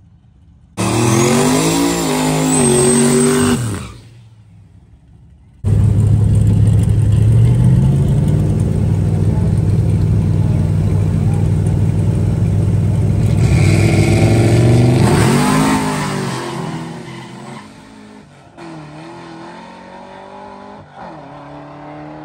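Drag-racing vehicle engines at full throttle: a short burst of hard revving about a second in, its pitch rising and falling, then a longer loud high-rev run from about six seconds in that fades away near sixteen seconds. Quieter engines idle near the end.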